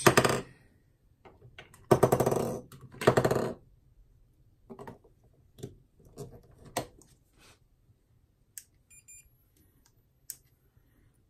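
AA batteries clattering as they are dropped into the battery tubes of a Sea & Sea YS-D2 underwater strobe, in three bursts, then smaller clicks as the battery cap is fitted and locked. About 8.5 s in a switch clicks and a faint high-pitched whine of the strobe charging follows for about a second and a half, ending in a sharp click near the end.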